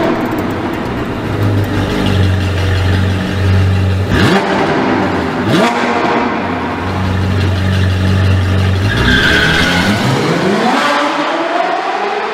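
Sports-car engine sound effect: the engine revs with quick upward pitch jumps a few seconds in, then winds up in one long rising rev with a whoosh near the end.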